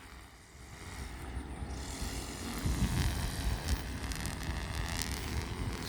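A road vehicle's engine and tyre rumble, rising as it approaches and loudest about three seconds in, then holding steady, with wind on the microphone.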